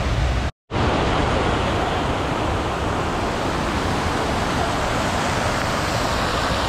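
Fountain jets splashing into a large pool: a steady rush of water. It cuts out to silence for a moment about half a second in.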